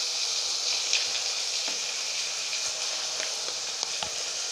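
Onion and capsicum pieces sizzling steadily in hot oil in a steel kadhai, with a few light clicks.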